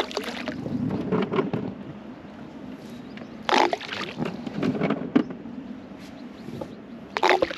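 Handfuls of boilies thrown out for carp, landing in the water as several quick clusters of plops and splashes.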